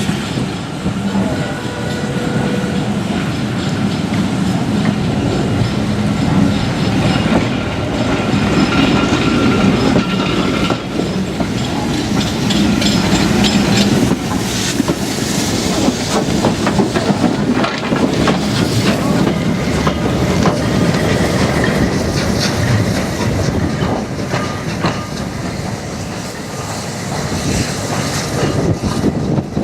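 LMS steam locomotive running on the main line, loud and continuous, its wheels clattering over the rail joints.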